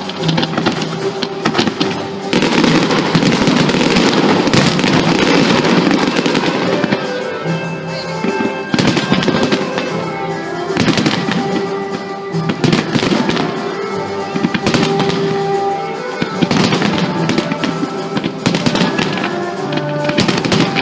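Fireworks display: dense bursts and crackling of aerial shells that swell and ease in waves, with music playing along underneath.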